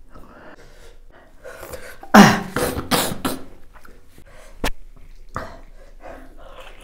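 A man coughing and clearing his throat, a short run of three or four coughs about two seconds in, his mouth burning from very spicy food. A single sharp click follows a couple of seconds later.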